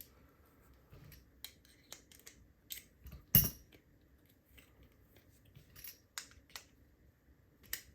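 Scattered small clicks and clinks of metal tools and a padlock being handled on a hard surface, with one louder knock about three and a half seconds in.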